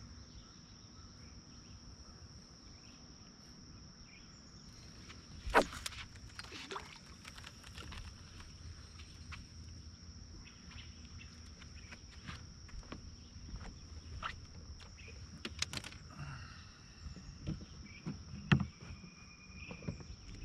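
Faint outdoor ambience: a steady high-pitched insect chirr, like crickets, with scattered light clicks and knocks, the loudest about five and a half seconds in.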